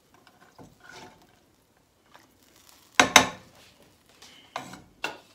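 Cookware being handled: faint scraping of a wooden spoon in a steel saucepan, then two sharp metal clanks about three seconds in and a few smaller clatters near the end as the masala goes into a steel mixer-grinder jar.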